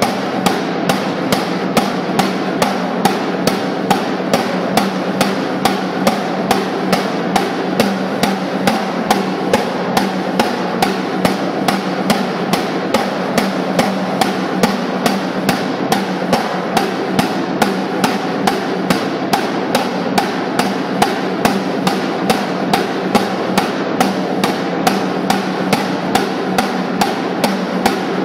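Snare drum played with sticks: a continuous rattling roll with an even accented stroke about two and a half times a second.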